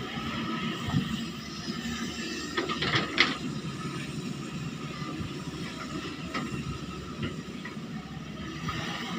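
Excavator engine running steadily, with a few sharp knocks about three seconds in.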